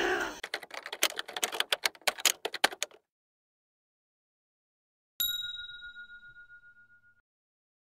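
A rapid, irregular run of sharp clicks for about two and a half seconds, then silence, then a single bright notification-bell ding about five seconds in that rings out and fades over about two seconds: an end-screen sound effect for the 'get notified' bell.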